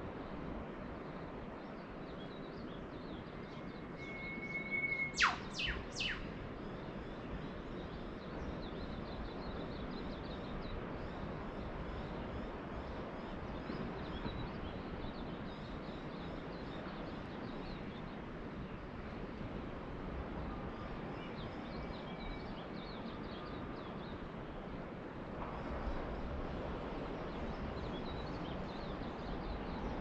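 Steady wash of distant ocean surf with birds calling over it. A held whistle comes first, then three sharp downward-sweeping whistles about five seconds in, the loudest sounds here, and faint high chirps come and go.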